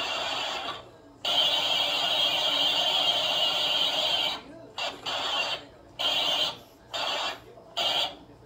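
A large dragonfly caught in a mantis's grip buzzing its wings. There is a steady buzz of about three seconds, then a string of short buzzes, about half a second each and roughly once a second.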